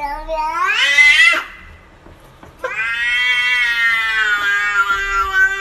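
A cat meowing in two long, drawn-out calls. The first rises in pitch and ends about a second and a half in. After a short pause the second is held for about three seconds, its pitch slowly falling.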